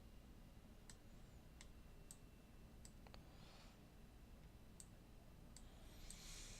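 Faint computer mouse clicks, about seven scattered irregularly, over quiet room tone.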